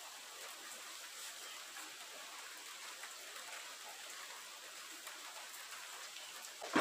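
Steady faint hiss of background noise with no machine running. A short, louder clatter comes right at the very end.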